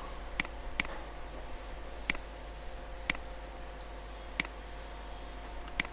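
Computer mouse clicking: six sharp, single clicks spaced unevenly, over a steady low background hum.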